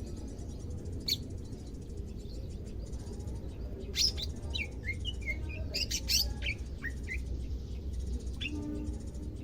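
Cucak ijo (greater green leafbird) chirping: one sharp call about a second in, then a quick run of short whistled notes and chirps in the middle, over a steady low hum. It is a newly kept bird beginning to call actively.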